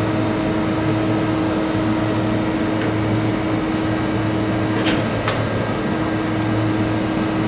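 Steady hum of an idling CNC mill-turn machine, with a constant low drone and a steady mid-pitched tone that drops out for a moment about five seconds in. Two sharp metallic clicks come around the same point.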